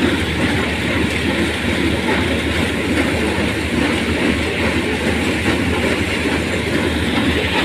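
Combine harvester running steadily while cutting sunflowers: a constant low engine hum under a dense, busy mechanical rattle from the header.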